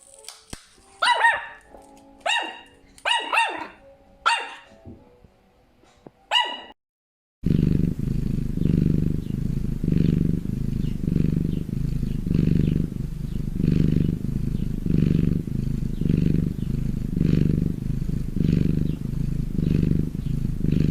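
A dog barks five short, sharp times, then a cat purrs steadily, the purr swelling and fading about once a second with each breath.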